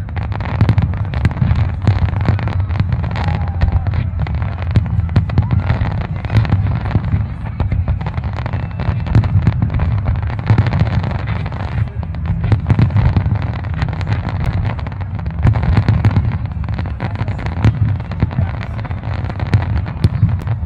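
Fireworks display: many aerial shells bursting in quick succession, a dense, continuous run of bangs over deep booms.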